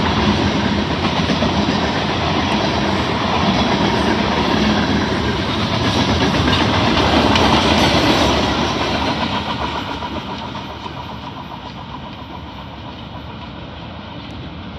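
Freight train cars rolling past, wheels clattering over the rail joints in a steady rumble that fades away a little after halfway as the train moves off.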